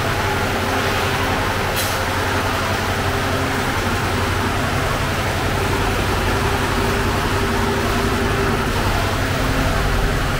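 Steady mechanical drone of bakery machinery: a low hum with a rushing roar over it, and one light click about two seconds in.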